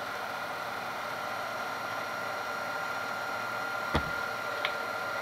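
Milling machine driving a rebuilt Denso alternator on a bench test: a steady running hiss and hum with a steady high whine over it, the alternator charging at about 14 volts and 20 amps. A single sharp click about four seconds in.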